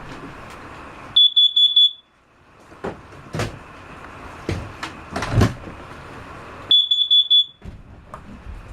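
RV carbon monoxide alarm sounding: two rounds of four quick, loud, high-pitched beeps, about five and a half seconds apart, set off by carbon monoxide that built up while the propane water heater ran in the closed trailer. A few light knocks and clicks fall between the rounds.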